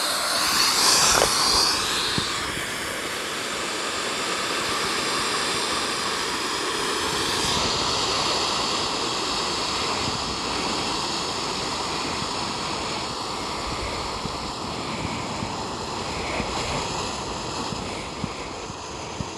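Air hissing steadily out of the pressed-open push valve of an Intex Explorer K2 inflatable kayak's floor chamber as the chamber is squashed flat under a person's weight. The rush is strongest in the first couple of seconds, then holds steady and eases a little near the end.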